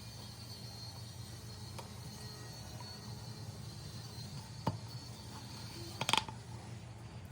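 Hard parts of a sink waste coupling being handled and fitted: a few faint clicks, then a louder clack with a short ring about six seconds in, over a steady low hum.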